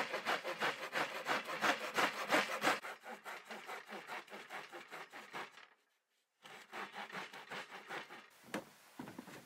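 Narrow-bladed handsaw cutting through a wooden board in quick back-and-forth strokes, about three or four a second. The sawing stops briefly a little past halfway, then goes on more softly.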